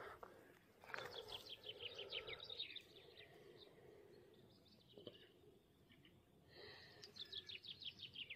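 Faint songbird song: a quick run of short notes falling in pitch, about two seconds long, sung twice a few seconds apart.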